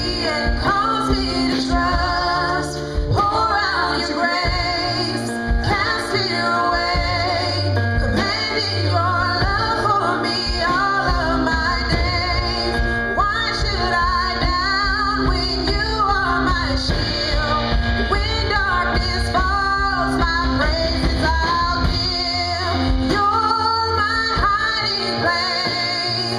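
A song with a woman singing the lead melody over sustained instrumental accompaniment.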